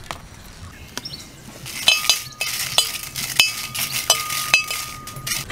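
A spoon clinking and scraping against a pan as dried red chillies are stirred while dry-roasting. It starts about two seconds in, with quick rustling scrapes, sharp clinks and a faint ring from the struck pan.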